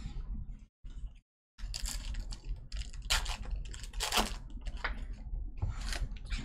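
Baseball trading cards being handled: a run of quick, irregular clicks, taps and rustles, with a few sharper clicks about three and four seconds in.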